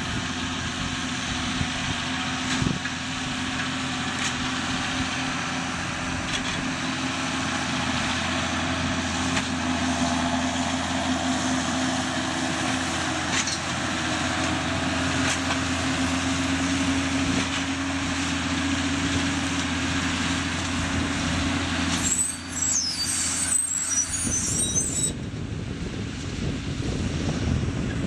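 John Deere tractor's diesel engine running steadily as it pulls a bale-collecting trailer, a constant hum with machinery noise. For a few seconds about three-quarters of the way through, high squealing sounds over it.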